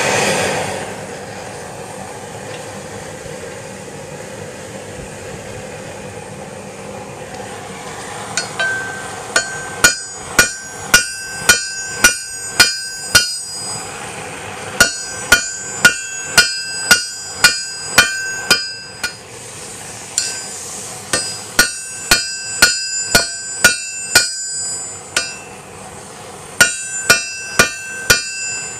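A weed-burner torch runs with a steady rush. From about eight seconds in, a hand hammer strikes hot steel on an anvil in runs of several blows about two a second, each blow ringing brightly, with short pauses between runs, as the bar is drawn down narrower and rounder.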